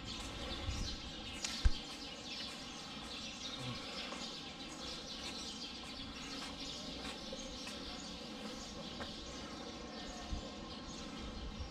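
Outdoor ballpark ambience: a steady buzz of insects with scattered bird chirps. A single sharp knock comes just under two seconds in.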